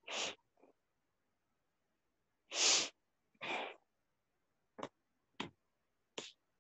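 Three short breathy puffs close to the microphone, like breaths or sniffs, the loudest about two and a half seconds in, followed by three brief clicks.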